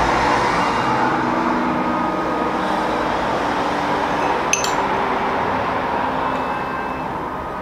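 A steady rushing background noise with faint tones in it. About four and a half seconds in comes a single sharp clink of a spoon against a ceramic ramekin.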